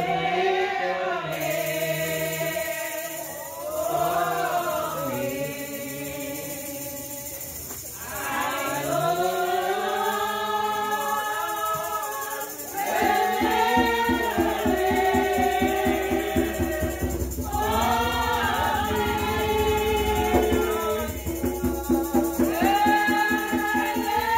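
Church congregation singing a gospel song together in long, drawn-out phrases. About halfway through, a steady rhythmic beat of shakes or claps and a low thudding join the singing.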